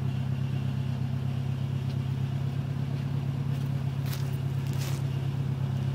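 1994 Toyota pickup engine idling steadily through its aftermarket exhaust, heard from outside near the exhaust outlet. A couple of faint light clicks come about four seconds in.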